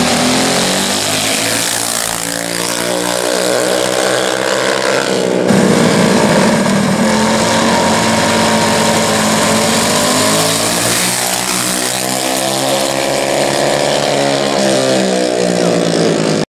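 Small gas mini bike engines accelerating hard, their pitch climbing steadily for several seconds as the bikes pull away. About five seconds in the sound cuts to engines running steadily at the start line, and then they rise in pitch again as another pair of bikes launches.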